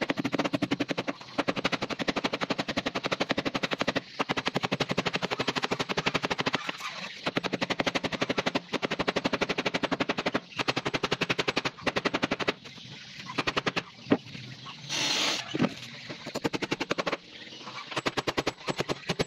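Claw hammer driving small nails into the plywood deck of a wooden boat: runs of rapid, light taps, broken by short pauses. The tapping thins out after about twelve seconds, and a brief hiss comes near the end.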